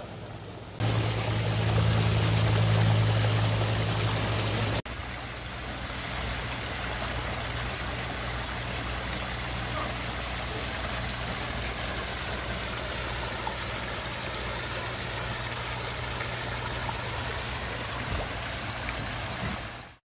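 Water from a small garden waterfall running and splashing over rocks into a shallow pebble stream, a steady rushing sound. A low hum sits underneath, loudest from about a second in until it drops off abruptly about five seconds in.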